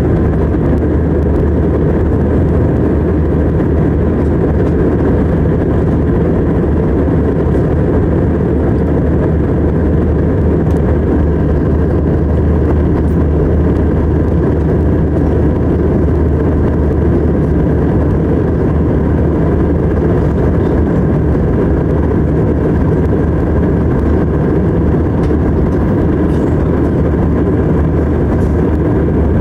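Steady cabin noise of a jet airliner in flight, heard from inside at a window seat: engines and rushing air make an even low rumble with a steady low hum.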